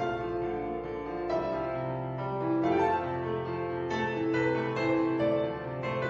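Instrumental keyboard music: held chords with new piano-like notes entering about once a second and left to ring.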